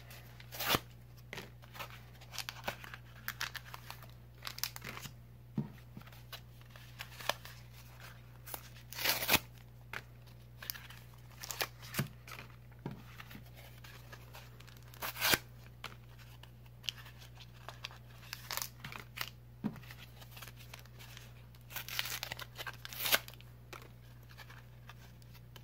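Foil wrappers and retail packaging of Pokémon trading card booster packs crinkling and tearing in the hands, in irregular crackles and short rips, over a steady low hum.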